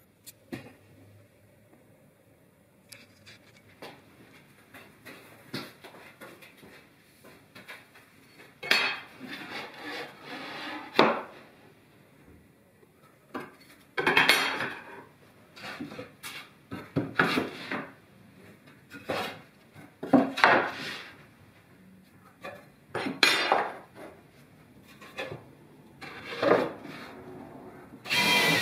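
Workshop handling noise: metal tools and wood pieces knocked, slid and set down on a plywood crosscut sled, in short clattering bursts every couple of seconds from about nine seconds in. A cordless drill starts near the end.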